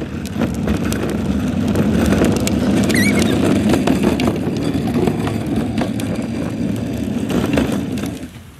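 The hard plastic wheels of a toddler's ride-on push car rumble and rattle over a rough concrete path, dying away near the end as the car comes to a stop.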